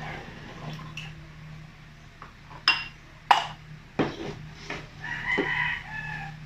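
Three sharp clinks, like glassware or dishes, come a little over half a second apart through the middle, over a steady low hum. A chicken calls in the background near the end.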